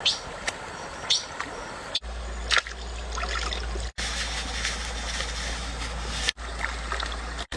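Water trickling and splashing steadily, with a few sharp clicks and knocks. It stops abruptly and starts again several times.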